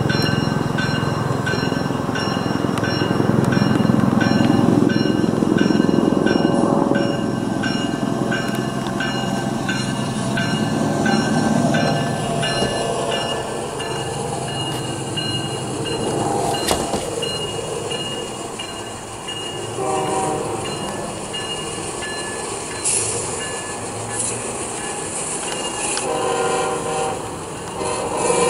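Dauphin-type helicopter passing close overhead, its rotor and turbine noise heavy at first and then fading as it flies off. A regular high ticking runs through it, and two horn-like blasts sound in the second half.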